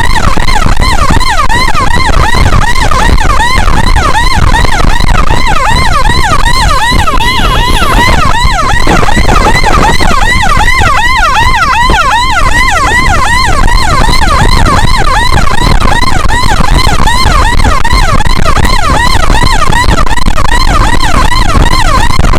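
An escort's electronic siren sounding in a fast yelp, its pitch sweeping up and down about four times a second, over a steady low rumble of vehicle and road noise.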